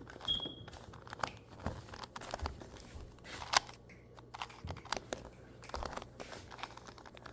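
2x2 Rubik's cube being turned through an algorithm: a run of quick, irregular plastic clicks and clacks as the layers are turned, with a brief squeak near the start.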